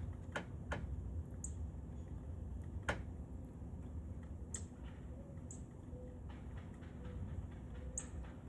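Northern cardinal giving a few brief, high chip notes a second or more apart, with several sharp clicks over a low steady rumble.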